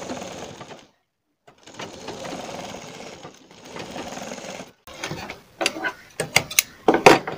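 Black straight-stitch sewing machine running in three short spurts of topstitching along a blouse neckline, with brief pauses between. A little after halfway the stitching stops, and a string of sharp knocks and clicks follows, the loudest near the end.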